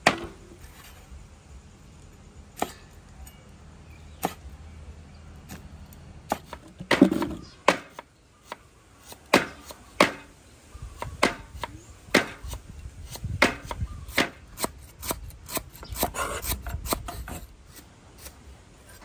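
Knife chopping food on a wooden cutting board: separate sharp strikes, a few far apart at first, then coming more often after about nine seconds.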